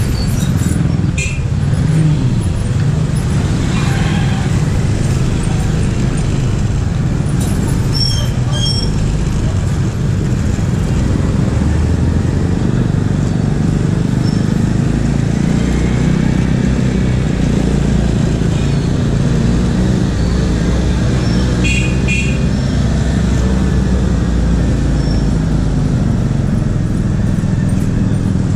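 Motorcycle engine and city traffic while riding at low speed: a steady low rumble of engines and road noise, with two short high-pitched beeps about 8 and 22 seconds in.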